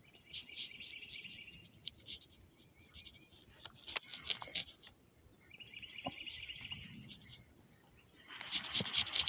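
Insects buzzing steadily at a high pitch. Over it, a baitcasting reel whirs in two short spells and clicks, with a sharp click about four seconds in. A louder run of rapid reel noise starts near the end.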